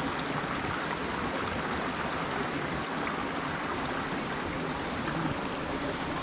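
Sweet and sour sauce simmering in a pan, thickening after cornstarch has gone in: a steady, even bubbling hiss with no separate knocks.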